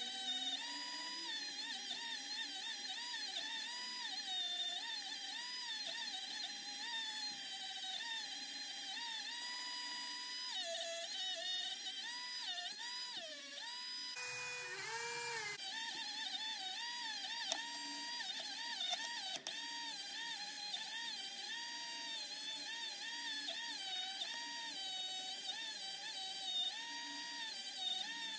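Small cordless rotary tool spinning a brass wire brush wheel against a zinc diecast toy body. Its motor whine keeps dipping in pitch and recovering as the brush is pressed in and eased off. About halfway through it drops lower for a second or so.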